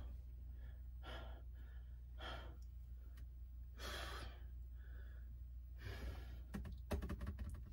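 A person breathing and sighing, faint soft breaths every second or two, over a steady low hum. Several quick faint clicks come near the end.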